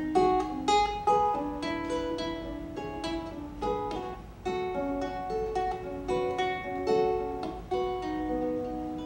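An instrumental break on a plucked string instrument, picking a melody of single notes over strummed chords, with no singing.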